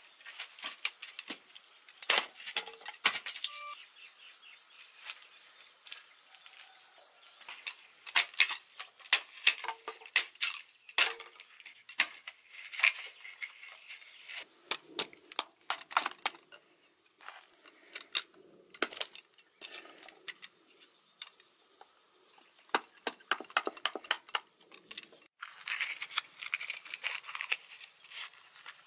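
Digging planting holes by hand in soil: a metal digging tool strikes the ground again and again at an irregular pace. There are a few softer, noisier stretches between the strikes.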